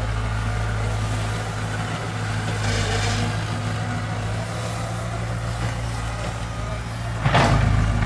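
Excavator's diesel engine running steadily as a low drone. About seven seconds in, a sudden louder noise cuts in over it.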